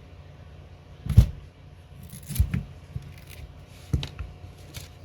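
Opening pick clicking and scraping around the edge of an iPhone XS screen as it works the screen loose from the frame: about half a dozen sharp, irregular clicks, the loudest about a second in.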